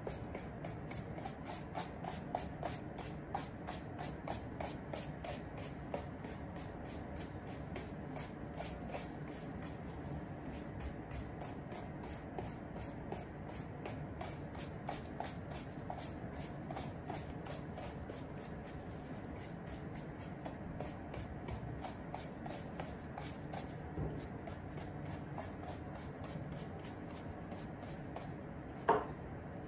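A small hand brush rubbing over a suede shoe's upper in quick, even, scratchy strokes. There is a single knock near the end.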